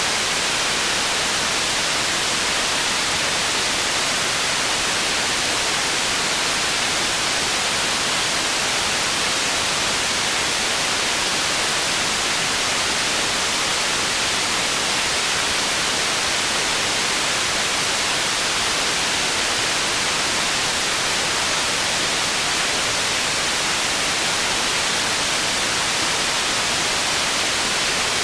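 Processed white noise for tinnitus masking: a steady, unbroken hiss, strongest in the upper-middle and high range with little low end.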